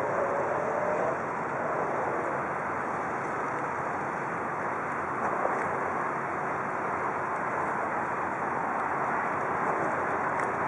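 Steady harbourside background noise: an even rush with no distinct events and no ship's horn.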